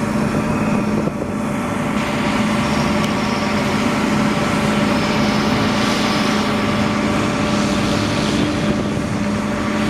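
Large diesel farm machinery engine running steadily under a constant load, with an even drone and a noisy mechanical wash over it.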